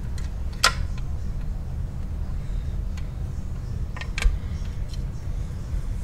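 Short metallic clicks and clinks as the steel parts of a clutch and brake pedal assembly are handled and fitted, two sharper clicks about half a second and four seconds in, over a steady low hum.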